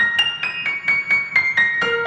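Background music: a light piano melody of quick single notes, about four or five a second, climbing and then stepping back down.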